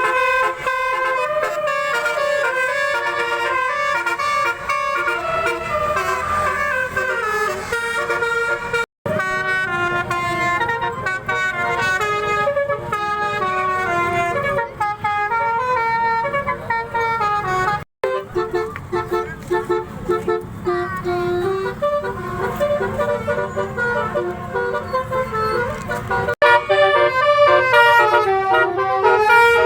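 Telolet multi-tone horns on cars sounding tune-like runs of stepped notes over a running engine. The sound drops out briefly twice, about nine and eighteen seconds in.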